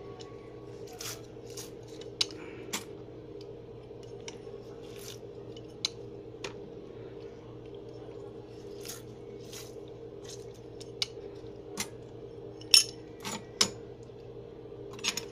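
Hinged metal hand-held lime squeezer pressing limes: irregular sharp metallic clicks and clacks as its jaws close and open, over a faint steady hum.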